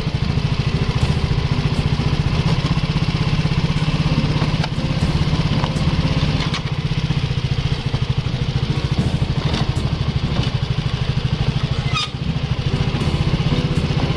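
Honda Dylan 125 scooter's single-cylinder four-stroke petrol engine idling steadily, with a few light clicks and knocks as the scooter is handled.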